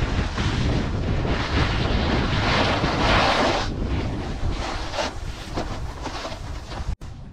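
Wind buffeting the microphone of a GoPro Max during a snowboard run, with a low rumble under the hiss of the board scraping over packed snow, loudest about three seconds in. The sound cuts off abruptly near the end.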